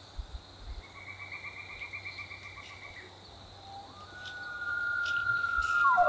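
Bull elk bugling, the rutting call: beginning about four seconds in, a whistle that rises and then holds high and clear, growing louder. Before it, a faint rapid trill repeats for about two seconds.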